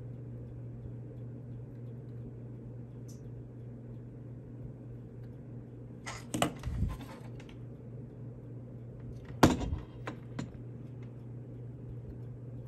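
A steady low hum with a few short knocks and bumps of handling at the soldering bench: two about six and a half seconds in, the loudest a sharp knock about nine and a half seconds in, and a smaller one just after.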